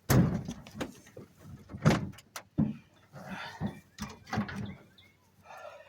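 Split firewood being loaded, the pieces landing one after another with heavy wooden thuds and knocks. The loudest thuds come at the very start and about two seconds in.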